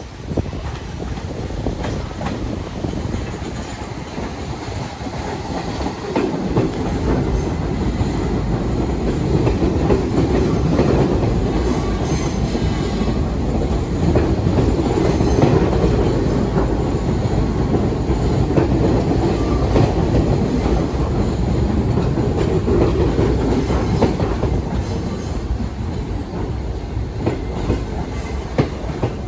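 New York City subway train running past, steel wheels clicking over the rail joints; the rumble builds about six seconds in, holds through the middle and eases off near the end.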